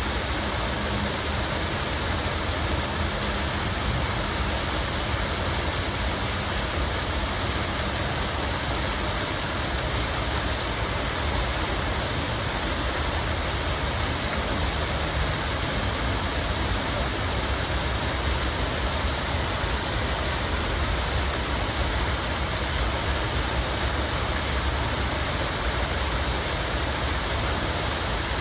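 Water falling and splashing in a steady, unbroken rush, with a low rumble underneath.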